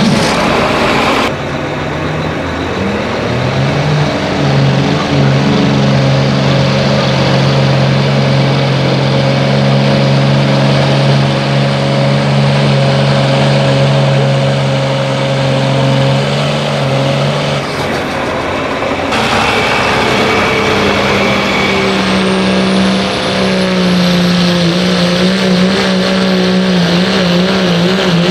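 Diesel pickup trucks pulling a sled under full load, engines held at high revs while struggling for traction. The sound changes abruptly twice where clips are cut together, and near the end the engine note wavers up and down.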